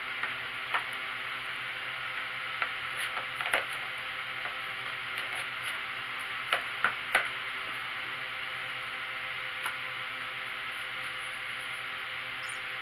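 Scattered light clicks and taps from kittens batting at a plastic ball-track cat toy, a cluster of three about halfway through, over a steady background hiss.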